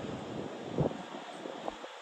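Gusty wind buffeting the microphone: a low rumbling rush with a sharp gust thump about a second in and a smaller one near the end.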